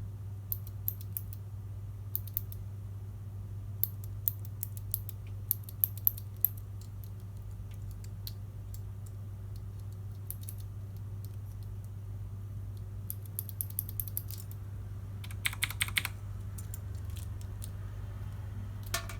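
Sharp plastic clicks and taps from a mechanical keyboard and its parts being handled, coming in irregular clusters, with a dense run of clicks about fifteen seconds in. A steady low hum runs underneath.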